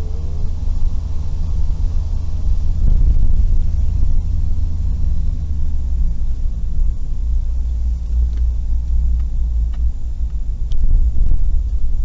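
Cabin noise inside a Suzuki Every kei van driving downhill: a steady low rumble of engine and tyres on the road, with a few faint clicks in the second half.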